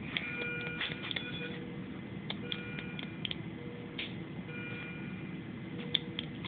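Steady low hum of NICU equipment. Over it come faint short electronic beeps, two high tones sounding together several times, an on-and-off lower tone, and a few soft clicks.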